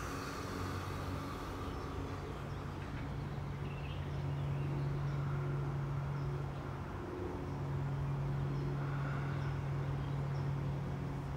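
Steady low hum of a distant motor, growing louder about four seconds in and dipping briefly around the middle before returning.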